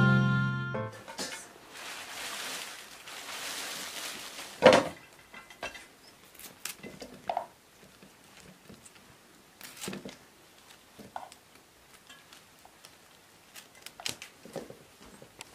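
Cauliflower being broken apart by hand and cut with a knife over an aluminium bowl: scattered snaps of florets, knife clicks and light knocks against the metal bowl, with one sharper knock about five seconds in. It opens with the tail of background music fading out, then a few seconds of soft hiss.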